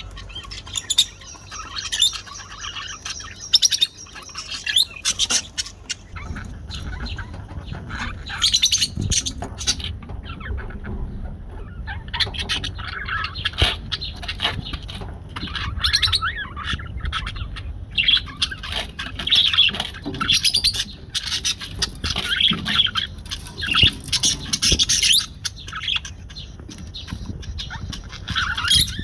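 Budgerigar chattering: rapid bursts of chirps and warbles broken by harsher squawks, with a brief lull a third of the way through.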